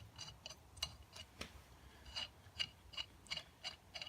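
Socket ratchet wrench clicking in an even run of light metallic ticks, about three a second, as bolts are run in to mount a hydraulic pump to its bracket.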